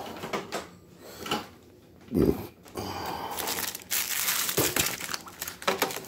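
Plastic packaging crinkling and rustling as an air conditioner's plastic-wrapped window side panels and parts are handled. There is a low bump from handling about two seconds in.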